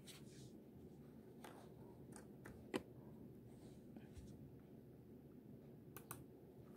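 Near silence: faint room tone with a few small clicks, the sharpest a little under three seconds in and a quick pair near the end.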